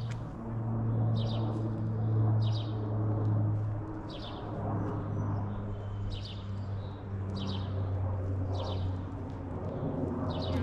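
A songbird giving short, high chirps, repeated about once a second, over a steady low hum.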